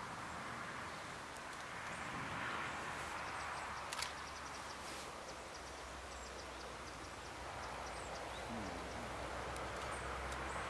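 Steady outdoor background noise with a low rumble that grows stronger about halfway through, and a single sharp click about four seconds in.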